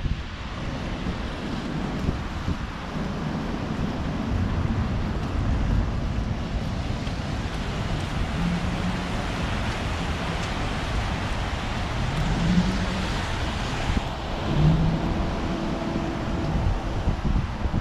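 Wind rumbling on the microphone over a steady hum of city street traffic, with a few passing vehicle hums in the second half.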